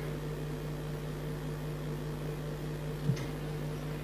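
Room tone of a lecture hall: a steady low electrical hum with a faint even hiss, and one brief faint sound about three seconds in.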